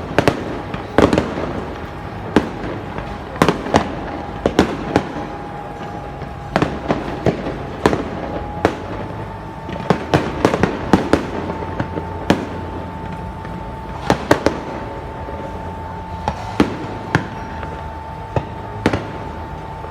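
Fireworks going off: many sharp bangs at irregular intervals, some in quick clusters, over a steady high hum.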